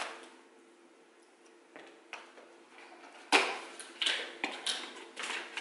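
A small cardboard box being cut open with scissors and handled. A few faint clicks, then a sharp snap about three seconds in, followed by clicking and crinkling of the packaging.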